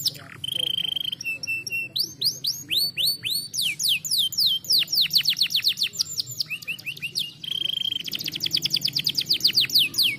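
Domestic canary singing: fast trills of rapidly repeated falling whistled notes, broken by steady held notes shortly after the start and again late on.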